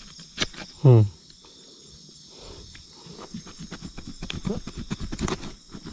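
Small knife cutting into a fish's gills, a quick run of small crunching, scraping clicks that builds through the second half, over a steady night chorus of insects. About a second in, a short falling grunt from the person working.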